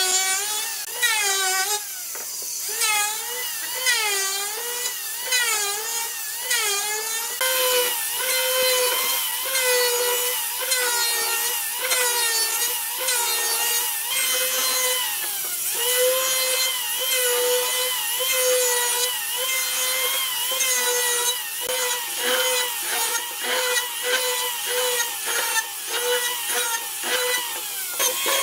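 Handheld electric planer running and shaving wood, its motor pitch dipping and recovering with each stroke of the blade. The dips come about once a second for the first several seconds, then the pitch holds steadier through a run of regular strokes.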